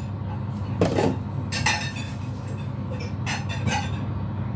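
Kitchen clatter: dishes and utensils clinking a few times, with sharp clinks about a second in and twice more a little after three seconds, over a steady low hum of kitchen equipment.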